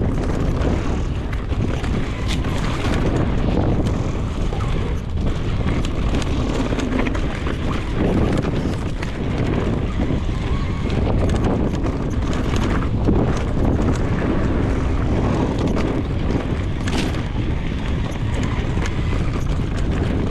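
Wind buffeting the microphone of a mountain bike rider moving fast down a dry, dusty dirt trail, with steady tyre noise and scattered knocks and rattles from the bike.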